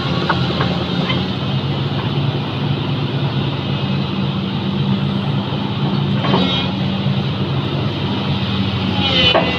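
An engine running steadily at an even speed, with a couple of brief higher-pitched sounds over it, one about six seconds in and one near the end.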